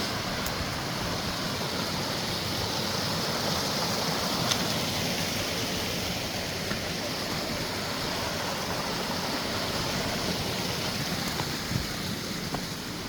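Mountain creek rushing with a steady, even noise.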